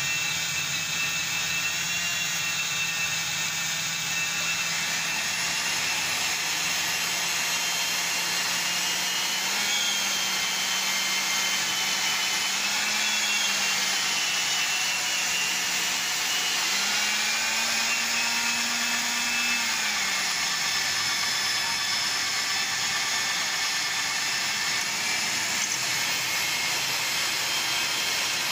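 Magnetic-base drill boring through steel plate, its motor running steadily under load. The motor's pitch rises and falls a few times about a third to three-quarters of the way through as the cutting load changes.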